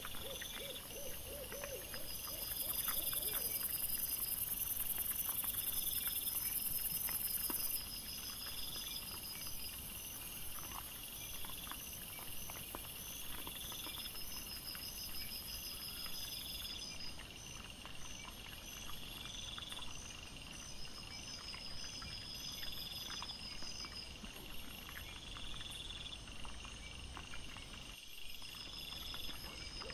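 Night insects chirping in steady, evenly repeated pulses, high-pitched. A short run of low hoot-like pulses comes right at the start, and a high hiss swells for a few seconds about two seconds in.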